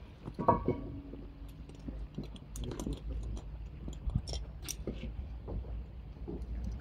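Scattered small clicks and light rattles of rescue gear being handled, such as harness buckles and carabiners being fitted on a firefighter, over a low steady rumble.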